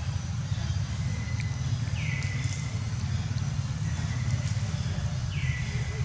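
Outdoor ambience: a steady low rumble with a few faint clicks, and two short whistled calls that fall in pitch and then hold, about two seconds in and again near the end.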